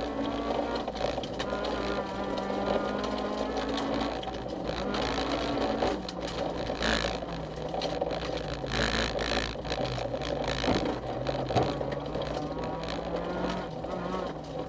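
Honda CRX rally car's engine heard from inside the cabin at stage pace, its pitch falling and rising with lifts and gear changes: it drops about four seconds in and again near ten seconds before climbing. Gravel rattles and clicks under the car throughout.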